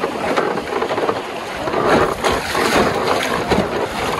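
Dunajec river water moving around a wooden rafters' raft, with wind buffeting the microphone: a dense, uneven rushing noise.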